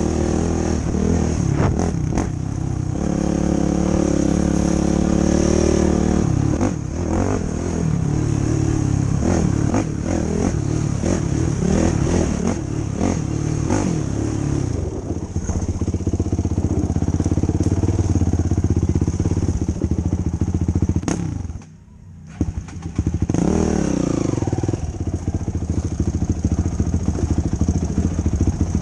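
2005 Yamaha YFZ450 quad's single-cylinder four-stroke engine revving up and down with the throttle on a trail ride. Near the end the sound drops out sharply for about a second, then comes back.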